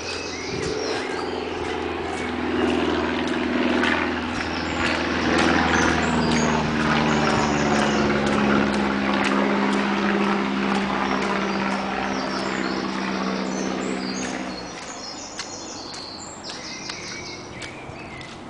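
An engine hums steadily and loudly, its pitch shifting a little, then cuts off about fifteen seconds in. Songbirds sing repeated high trills over it, and a few sharp crunching steps come near the end.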